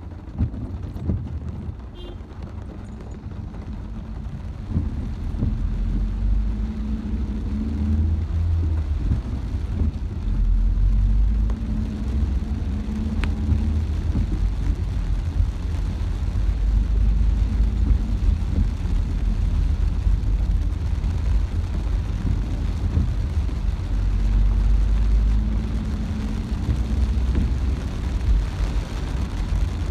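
Car driving, heard from inside the cabin: a steady low engine and road rumble that gets louder after the first few seconds.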